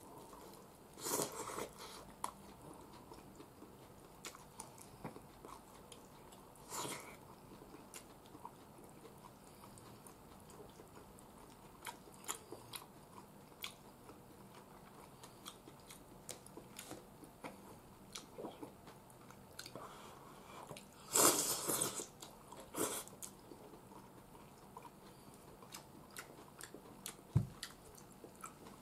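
A person eating curry udon with meatballs from a bowl with chopsticks: quiet chewing and mouth noises with scattered small clicks and a few short noisy bursts, the loudest about 21 seconds in, and a dull knock near the end.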